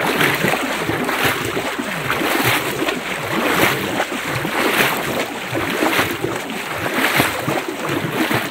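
Muddy river water sloshing and splashing around people wading chest-deep through it, swelling about once a second with their strides.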